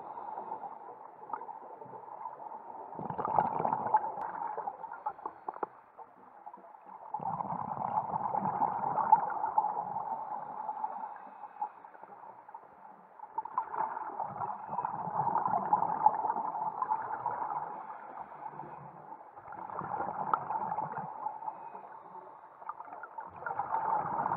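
Muffled underwater gurgling and rushing heard through a camera's waterproof housing, swelling and fading about every five to six seconds.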